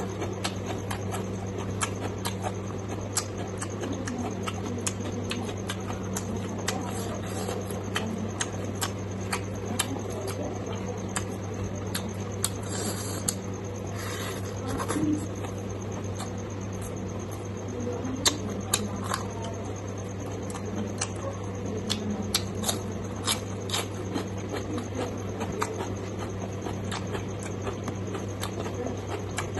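Close-miked eating sounds of fatty pork and rice eaten by hand: wet chewing, lip-smacking and sharp mouth clicks, coming irregularly throughout, over a steady low hum.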